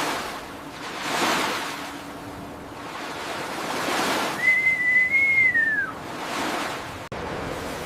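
Sea waves washing in repeated swells. Near the middle there is one long whistle-like tone that rises slightly and then falls away.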